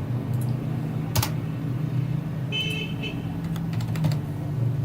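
A few computer keyboard keystrokes and clicks over a steady low hum, with a short high tone about halfway through.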